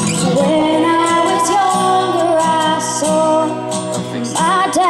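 A female voice singing a slow ballad live, with guitar accompaniment.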